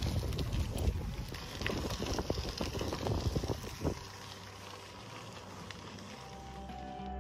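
Priority 600X touring bicycle riding over a dirt and gravel trail: tyres crunching over loose stones, with rattling knocks from the bike and wind on the microphone, growing quieter about four seconds in. Music fades in near the end.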